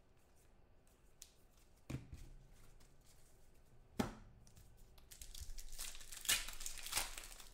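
Two short knocks about two seconds apart, then foil trading-card packs crinkling and rustling as hands sort through a stack of them, with a couple of sharper crackles near the end.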